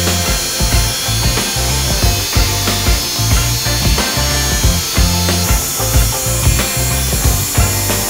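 Background music with a steady beat of about two pulses a second and a stepping bass line.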